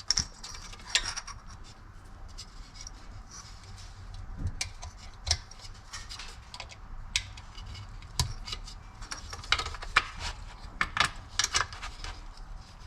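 Scattered light clicks and clatter of small plastic and metal parts being handled, as a speaker wire is fed through a plastic speaker adapter bracket.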